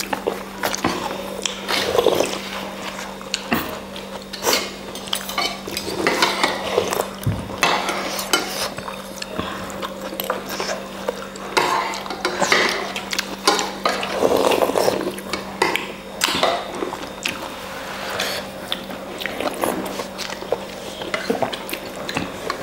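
Utensils clinking and scraping against a bowl of noodle soup as it is eaten, in irregular clicks and knocks every second or so, over a faint steady hum.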